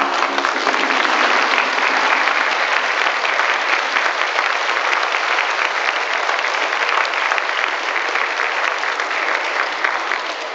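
Audience of children and adults applauding, a dense steady clapping that eases a little near the end. The last notes of the dance music die out just as the applause begins.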